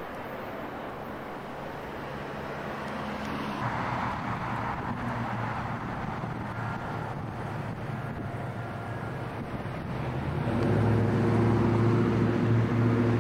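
Train rumble, then an NJ Transit ALP45DPA dual-mode locomotive approaching in diesel mode: its engine drone grows loud and steady about ten seconds in.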